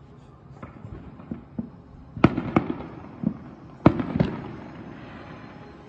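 Fireworks going off: a few small pops, then four loud sharp bangs in two close pairs about two and four seconds in, each trailing into an echo.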